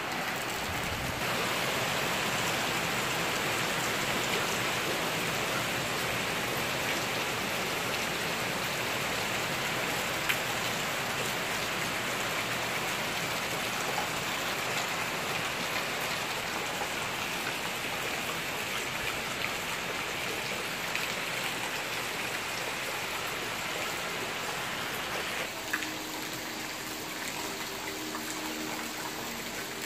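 Steady rain falling, an even hiss, a little quieter for the last few seconds.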